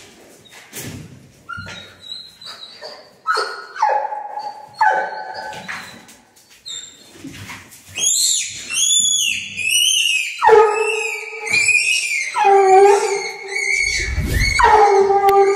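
Young Grand Bleu de Gascogne hounds baying and yelping: drawn-out bawls up to about a second long mixed with high whining cries, growing busier and more constant from about halfway through. A short low thump comes near the end.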